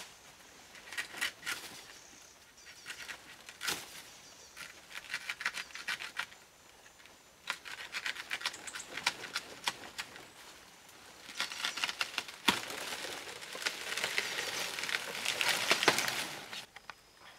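Dry banana leaves and fibrous plant stalks crackling, rustling and tearing as they are pulled apart by hand, with a few sharp snaps. The crackling comes in short spells and grows dense and continuous over the last five seconds or so.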